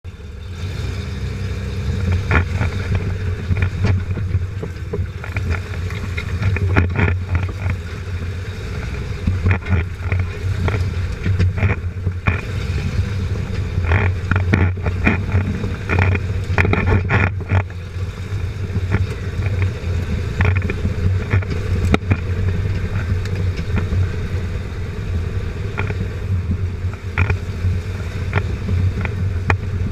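Lifted Jeep Cherokee XJ crawling along a rough dirt trail, heard from under the chassis: a steady low drone of engine and drivetrain, with frequent sharp knocks and rattles from the underbody as the axle and suspension work over the bumps.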